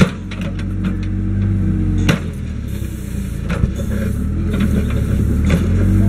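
Kobelco SK042 mini excavator's diesel engine running while the boom and bucket are worked. The engine eases off after a sharp clack at the start and gives a knock about two seconds in. Its steady, harder-working note comes back near the end.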